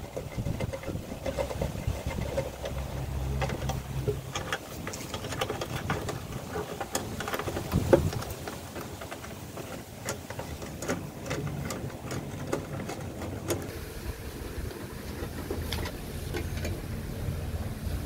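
Metal screwdriver scraping and tapping against the rusted frame of a Corona SCM typewriter as caked dirt is pried out, making irregular clicks and scrapes with one sharper knock about eight seconds in.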